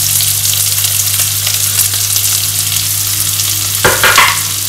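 Chopped onions sizzling steadily in hot coconut oil in a nonstick wok.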